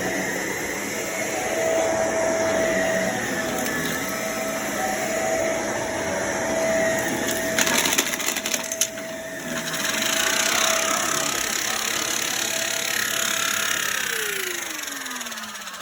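Vacuum cleaner running with a steady motor whine, crackling as it sucks up gritty dirt for a second or two midway. Near the end the motor is switched off and winds down, its whine falling steadily in pitch.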